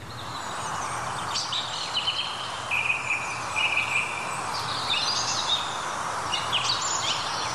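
Steady background noise with scattered short, high chirps and whistles that sound like birdsong.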